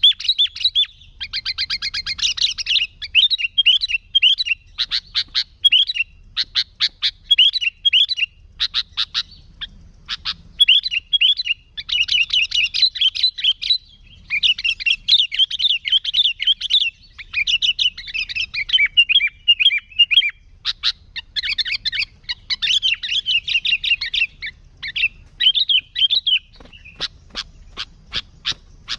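Sooty-headed bulbul (kutilang) singing vigorously, a near-continuous run of quick chattering phrases and sharp repeated notes with only brief pauses.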